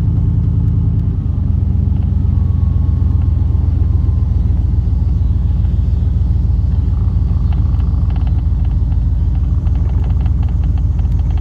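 A road vehicle's engine running steadily while driving, a low rumble whose note changes about a second in.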